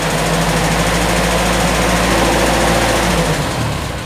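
Jeep engine being revved: the revs climb and are held for a couple of seconds, then drop back toward idle near the end.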